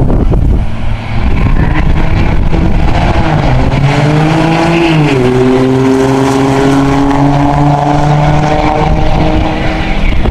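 Diesel pickup trucks launching in a drag race and accelerating hard down the strip. Engine pitch climbs, drops sharply with an upshift about five seconds in, then climbs again as a truck passes close.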